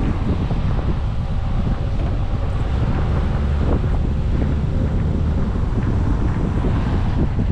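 Wind buffeting the microphone of a camera on a moving car, over a steady low rumble of the car driving on wet pavement.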